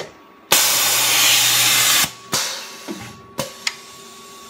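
Tormach 1100M automatic tool changer cycling. A loud blast of compressed air lasts about a second and a half, then comes a shorter hiss and a few sharp clicks and knocks as the pneumatic carousel moves and the tool is exchanged. Its air pistons are throttled down for smoother motion.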